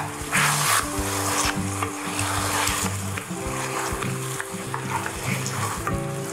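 Beef stir-fry with peppers and onions sizzling in a hot pan while a utensil stirs it, with scrapes and light knocks against the pan. Background music with sustained notes plays under it.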